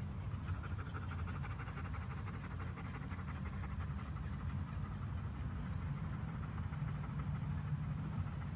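A dog panting rapidly in quick, even breaths over a steady low hum.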